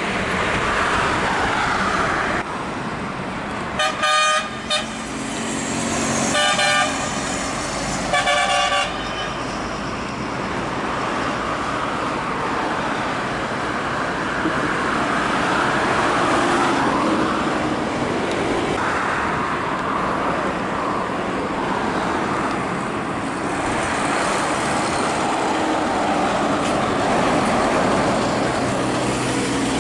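Heavy trucks passing on a highway, diesel engines and tyres making a steady rumble and hiss. A truck horn sounds in four short blasts between about four and nine seconds in.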